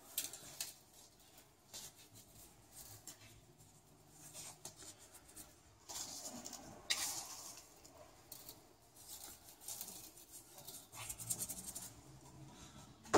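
Faint scattered rustling and light taps, louder for a moment about halfway through, with no machine running.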